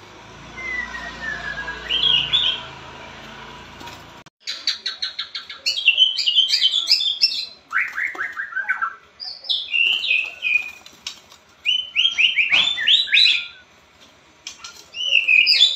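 White-rumped shama (murai batu) with pied plumage singing. A faint falling whistle and a few chirps come first. About four seconds in, a loud, fast song starts: quick clicking notes, then a varied run of chirps, trills and whistled phrases, with several falling runs.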